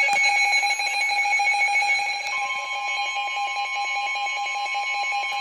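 A NOAA Weather Radio receiver sounds its alert alarm, a rapidly pulsing electronic beep signalling an incoming emergency alert. About two seconds in, a steady single tone just above 1 kHz comes on: the 1050 Hz warning alarm tone that NOAA Weather Radio sends ahead of a warning.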